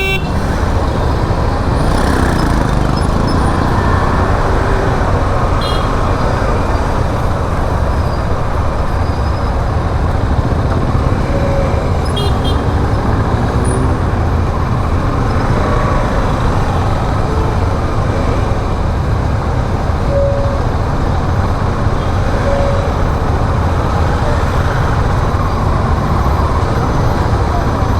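Steady rush of wind and road noise from a motorcycle ride in traffic, heavy in the low end, heard on a rider's action-camera microphone.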